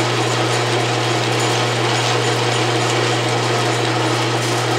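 Atlas lathe running under power, its change-gear train, including a 3D-printed PLA gear, turning with a steady mechanical whir over a constant low hum.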